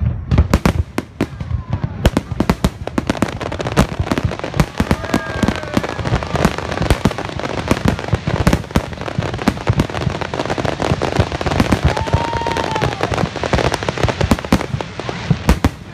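Fireworks display: a continuous barrage of aerial shells bursting, many sharp bangs a second with crackling and a low rumble between them.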